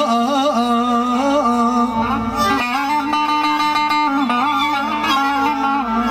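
Live Turkish folk music over a PA system: a man singing with ornamented, wavering lines, accompanied by a plucked string instrument and keyboard.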